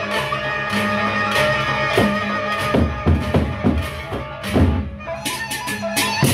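Gendang beleq ensemble playing: the large double-headed drums beaten in quick runs of strokes over steady held low tones, with sharp bright strikes near the end.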